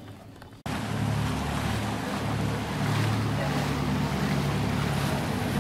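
Motorboat engine running steadily with water and wind noise, cutting in abruptly about half a second in.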